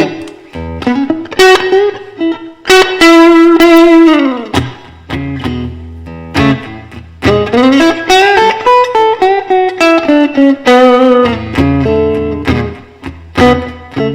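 Electric guitar playing an instrumental melody line with string bends, notes gliding down and arching up and down in pitch, over lower sustained notes.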